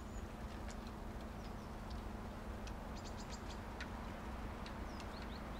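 Small birds giving short, high chirps and quick downward whistles, scattered and irregular, over a steady low hiss and a faint low hum.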